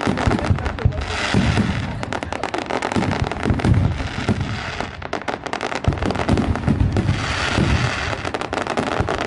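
Fireworks display going off continuously: a dense run of sharp pops and crackles over repeated low booms.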